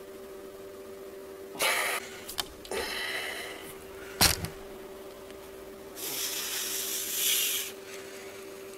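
Three bursts of breathy, hissing noise, the longest near the end, and one sharp click about four seconds in, over a steady electrical hum.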